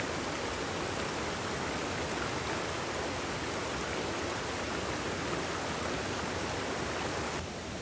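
Mountain stream rushing over rocks and a small cascade, a steady water rush; near the end it turns a little quieter and duller.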